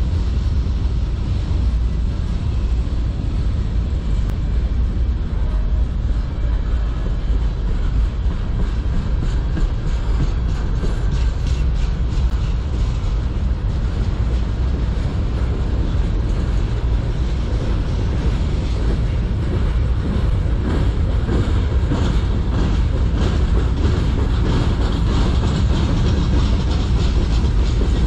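Freight cars of a manifest train (covered hoppers, a centerbeam flatcar and boxcars) rolling past: a steady, loud rumble of steel wheels on the rails. The clickety-clack of wheels over rail joints grows more distinct in the second half.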